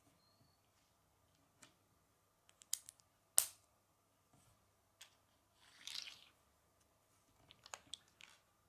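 Small plastic LEGO plates clicking as they are handled and pressed together: scattered sharp clicks, the loudest about three and a half seconds in, with a short rustle past the middle.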